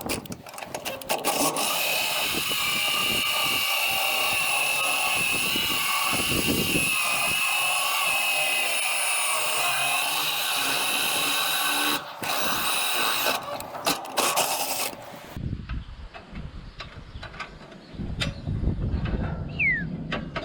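Power drill boring a hole through the metal frame of a field bin, running steadily with a whine for about twelve seconds, then stopping suddenly. A few short bursts of the drill follow, then quieter rumbling and knocks.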